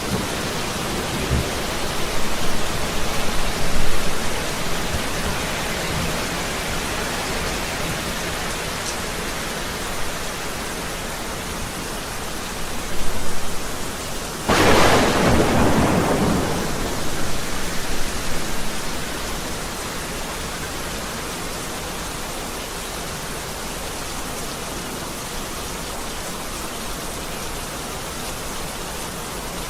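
Heavy rain falling steadily, with thunder rumbling in the first few seconds. About halfway through, a sharp, close thunderclap cracks and rolls away over a few seconds, and then only the steady rain is left.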